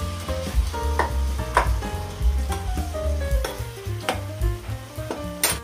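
Chopped tomatoes sizzling in a stainless steel kadai while a steel spoon stirs them, with sharp scrapes and knocks of the spoon against the pan every second or so. Background music with a melody and a deep pulsing bass plays under it.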